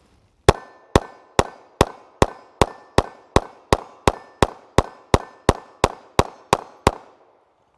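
Caracal EF Quick Sight 9mm pistol firing a full 18-round magazine in a steady string, about two and a half shots a second with no pause between them, each shot a sharp crack with a short echo.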